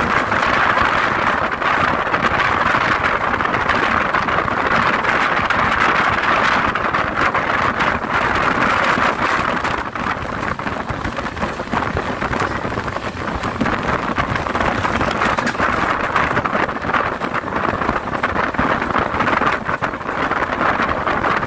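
Steady rushing noise of a passenger train running at speed, heard from an open coach window: wheels on the rails and the wind of travel.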